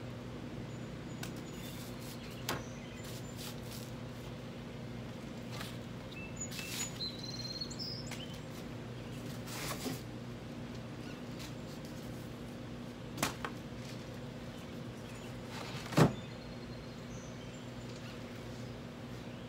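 Scattered handling knocks and rustles as the plastic-wrapped grass catcher bag and its frame are pulled out of a cardboard mower box, with one sharp knock about sixteen seconds in that is the loudest sound, over a steady low hum.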